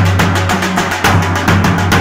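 Nashik dhol drum band: several large barrel drums and smaller side drums beaten with sticks in a fast, even rhythm, about eight strokes a second over a deep booming beat.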